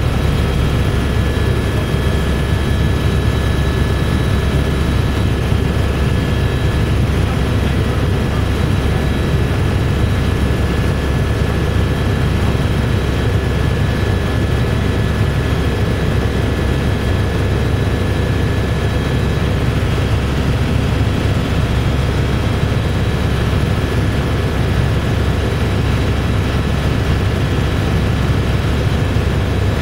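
Eurocopter AS350B3 Ecureuil helicopter in cruise, heard inside the cabin: a steady deep rotor and airframe rumble with a thin, constant high whine from its Turbomeca Arriel 2 turboshaft engine.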